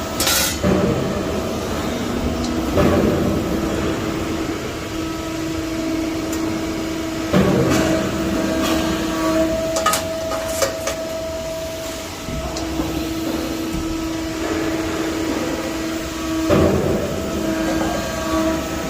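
CNC press brake bending 1.5 mm sheet steel: a steady machine hum, with a louder surge each time the ram strokes, about four times, and a few sharp metallic clicks in between.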